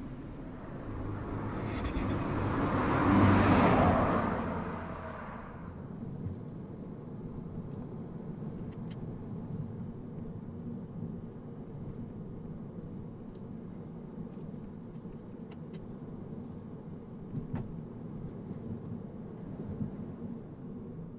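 A MINI Cooper five-door hatchback drives past, its engine and tyre noise swelling to a peak about three seconds in and then fading away. After that comes a steady engine and road hum heard inside the car's cabin, with a few faint clicks.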